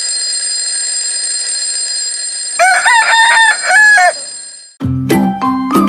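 A rooster crows one broken cock-a-doodle-doo about two and a half seconds in, over a steady hiss with high ringing tones. Music with a beat starts near the end.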